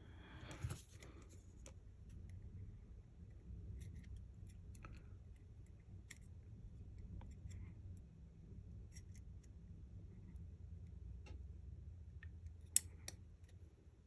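Faint, scattered clicks and light scrapes of small hand tools working on an iPhone 12 Pro opened for a battery replacement, with one sharper click near the end over a low steady hum.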